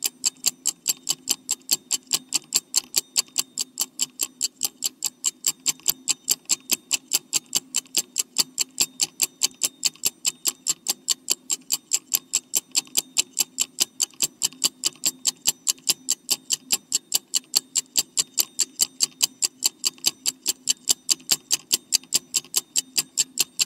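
Clock-tick sound effect of a countdown timer: quick, even ticking, several ticks a second, over a faint low hum.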